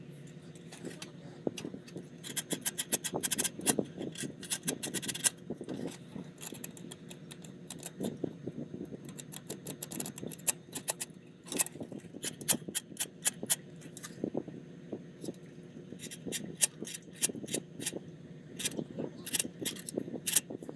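Rapid clicks, taps and light scrapes of small hard objects being handled, coming in bursts with rattling runs, over a faint steady hum.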